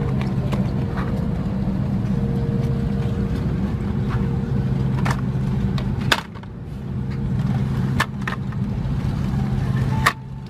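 Steady low hum inside the cabin of an Airbus A330-200 airliner, with three sharp plastic clicks spaced about two seconds apart from the seatback tray table being lowered and unfolded.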